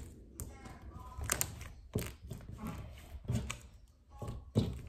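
Pink jelly slime full of air bubbles being squeezed and stretched in the hands, giving a string of sharp pops.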